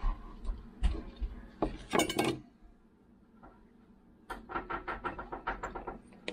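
A chef's knife cuts through a lemon on a plastic cutting board, with several sharp knocks of the blade on the board. After a short lull comes a quick run of small clinks and taps as garlic pieces are put into a glass jar.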